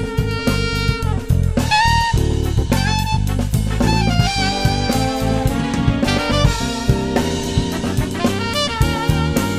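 Small band playing together: a saxophone carries a melody with bending notes over a drum kit keeping a steady beat, electric bass and keyboards.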